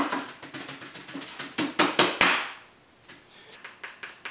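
A paintbrush beaten against a hard surface to knock the liquid out of its bristles: a rapid run of sharp knocks, loudest about two seconds in, then a few lighter taps near the end.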